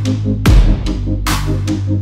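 Electronic music with a heavy beat: a deep kick drum with a dropping thud about half a second in, over a held bass and a repeating pattern of short synth notes.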